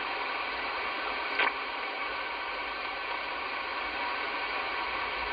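Midland Alan 9001 CB radio's speaker hissing with band noise on 11 metres in the gap between stations, with one short crackle about a second and a half in.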